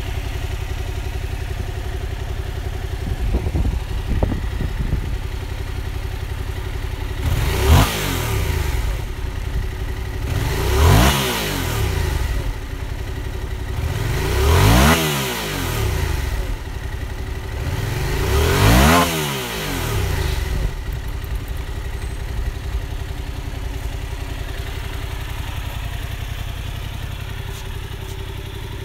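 2019 Yamaha MT-07's 689 cc parallel-twin engine idling, blipped four times with the throttle. Each rev rises and falls back to idle, the first about eight seconds in and the last about nineteen seconds in, then it idles steadily.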